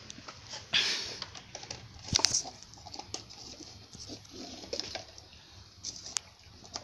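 A dog nosing and eating from a noodle cup on a tiled floor, the cup scraping and tapping on the tiles. Scattered light taps and clicks, a short scrape about a second in, and the loudest clatter of clicks a little after two seconds.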